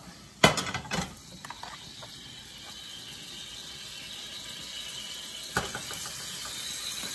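Marinated chicken pieces going into a hot frying pan with a few knocks, then a steady sizzle that slowly grows louder as it fries, with one more knock near the end.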